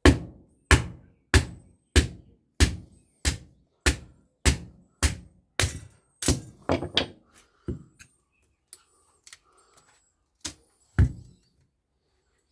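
Hammer blows on a microwave oven transformer, striking steadily about one and a half times a second for some seven seconds, then a few light taps and two more hard blows near the end: knocking the copper windings out of the core.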